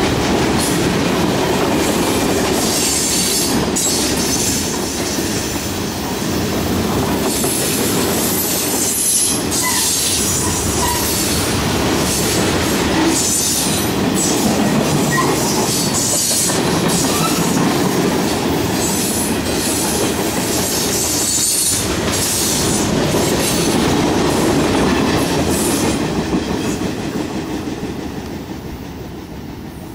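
Freight train cars rolling past close by, their steel wheels clattering over the rails with spells of high-pitched wheel squeal. The noise fades over the last few seconds as the last car goes by.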